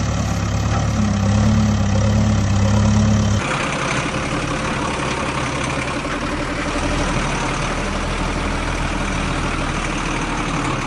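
Heavy-vehicle engine sound effect running steadily with a low hum. About three and a half seconds in it changes to a rougher, noisier running sound.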